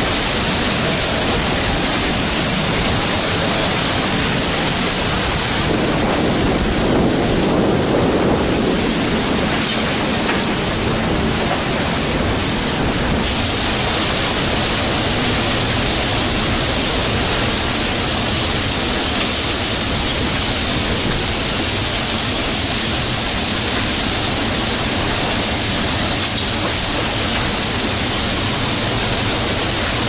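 Typhoon-force wind and driving rain: a loud, steady rushing noise with no let-up, its tone shifting slightly a little before halfway through.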